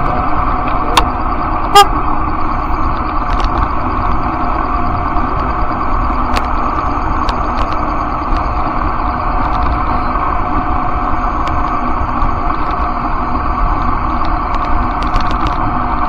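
Steady riding noise from a bicycle on a paved street: wind and road rumble, with a steady hum of several tones underneath. There is a single sharp knock with a brief ring about two seconds in, and a few faint clicks.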